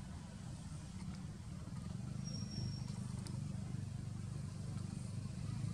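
Steady low rumble of a motor engine running in the background, with a brief high-pitched chirp about two seconds in.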